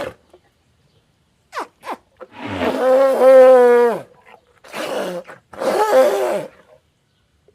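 Imagined animal calls made as a Uintatherium sound effect: two brief falling squeaks, then a long call held at one pitch for almost two seconds, then two shorter, harsher calls.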